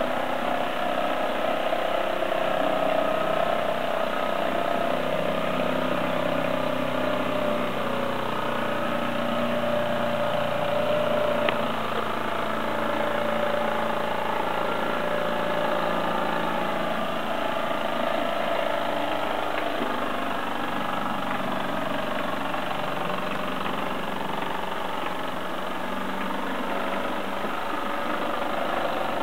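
Mamod single-cylinder live steam engine running steadily, driving a Meccano-built toy train along brass G-scale track.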